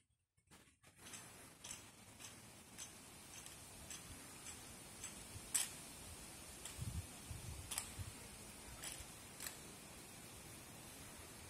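Honor guard rifle drill heard from a distance: a run of sharp clicks at about two a second, from rifles and drill boots on pavement. A few dull thumps come in the middle, and the clicks grow sparser after that.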